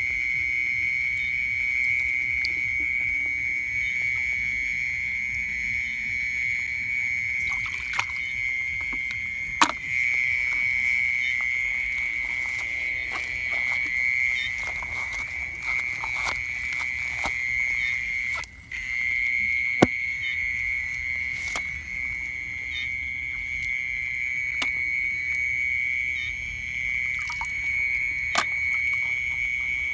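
Steady night chorus of frogs calling from the ditch, a continuous high-pitched trill that drops out briefly a little after halfway. A few sharp knocks cut through it, the loudest about ten and twenty seconds in.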